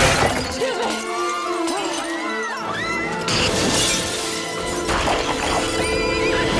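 Orchestral action score over a film sound mix, with shattering and crashing impacts. The loudest crash comes about three seconds in.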